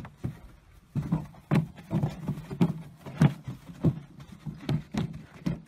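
Horse's hooves thudding on dry dirt in a steady rhythm, a little under two beats a second, starting about a second in.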